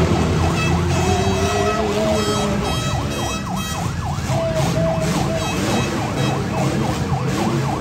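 The engines of several compact demolition derby cars revving hard over one another, their pitches rising and falling quickly and again and again, over a heavy low rumble.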